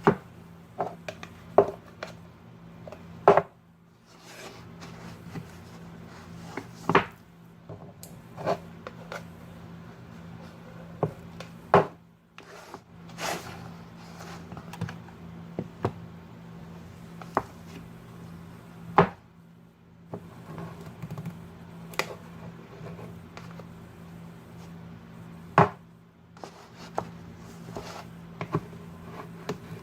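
A spoon scooping ice cream and knocking against a plastic cup: irregular sharp knocks and clicks every second or two, over a steady low hum.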